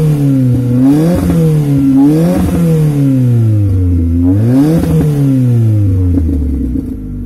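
Fiat Grande Punto engine and exhaust fitted with an exhaust cutout valve, revved in quick throttle blips about four times while the car stands still. After the last, longer blip the revs fall slowly and settle to idle near the end.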